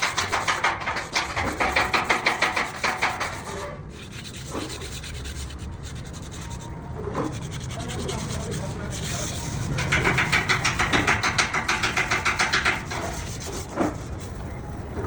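Fast rhythmic scraping on metal, several strokes a second, in two spells: one at the start and another about ten seconds in, with a steady low workshop noise between.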